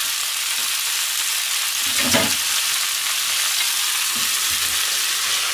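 Chopped cabbage sizzling in oil in a frying pan, a steady hiss as it starts to steam-fry and give up its water. A brief clunk about two seconds in.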